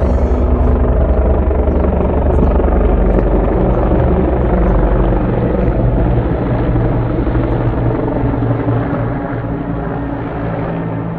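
Helicopters flying overhead: a fast rotor beat with steady low engine tones, growing fainter over the last few seconds as they fly off.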